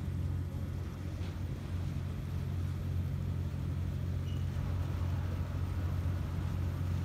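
Steady low engine drone heard on board a Star Ferry crossing the harbour.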